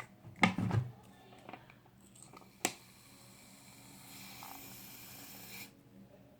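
Aerosol shaving cream can being sprayed: a click, then a steady hiss about three seconds long that cuts off suddenly.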